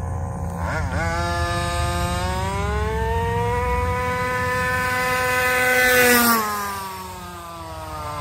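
Small 30 cc two-stroke engine of a 1/5-scale HPI Baja 5T RC car: a quick throttle blip, then a run at full throttle where the note climbs to a high steady buzz, loudest about six seconds in, before the pitch drops sharply and the sound fades.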